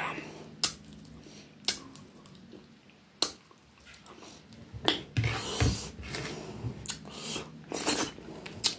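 Close-miked eating with the hands: sharp wet clicks from lips smacking and fingers being licked, spaced about a second apart at first, then denser chewing and smacking from about five seconds in.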